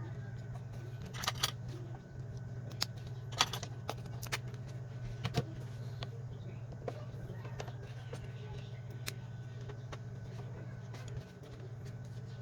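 Scattered sharp little clicks and taps of small parts and tools being handled during the phone repair, over a steady low hum.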